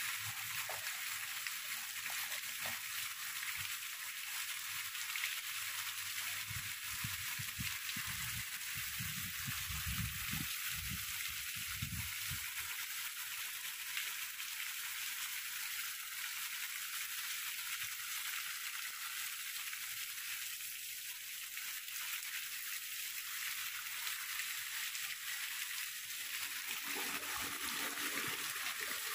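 Heavy rain falling steadily, a dense hiss of rain on grass and leaves, with water streaming off a roof edge close by. A low rumble comes and goes in the first half and again near the end.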